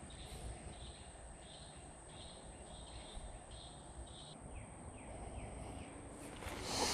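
Insects and birds calling by a pond: a steady high-pitched insect buzz under a pulsed call that repeats a little under twice a second and stops about four seconds in, followed by a few short falling chirps. A brief rustle swells near the end.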